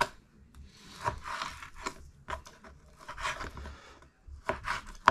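Kitchen knife slicing raw pork into chunks on a wooden cutting board: a series of drawn cutting strokes, several ending in a sharp tap of the blade on the wood.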